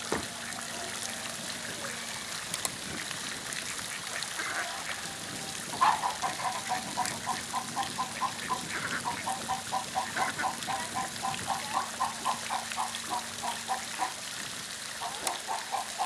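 Domestic mallard ducks calling: from about six seconds in, a long run of short, low quacks at about four or five a second, breaking off briefly near the end and starting again. Under it, the steady sound of water dripping and lapping as the ducks preen.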